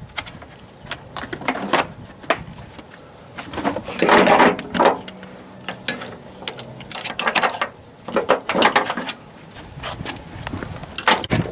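Irregular metallic clicks, knocks and rattles of tools and parts being handled, in bunches about four seconds in and again around eight seconds in.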